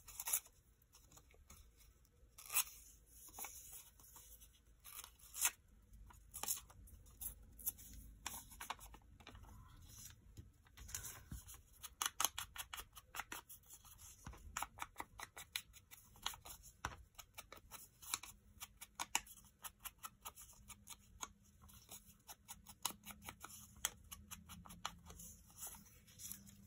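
Light dabbing and tapping of a foam ink blending tool against a small scrap of paper, with paper handling in between. The taps grow rapid, several a second, from about twelve seconds in until near the end.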